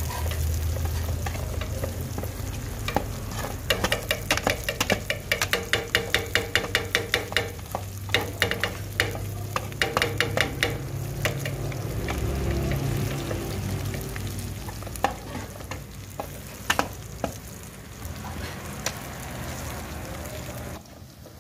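Chopped onions sizzling as they fry in ghee in a metal karahi, being browned, while a metal ladle stirs and scrapes against the pan. The ladle's clicks come in a quick run of several a second in the first half, then as scattered taps.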